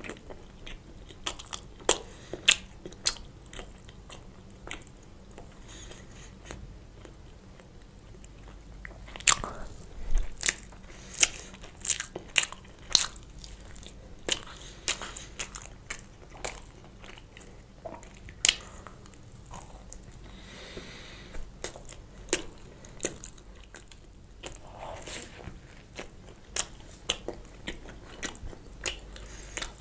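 Close-miked biting and chewing of toasted bread topped with melted mozzarella: sharp, irregular crunches of the toast, coming in clusters, with softer chewing between.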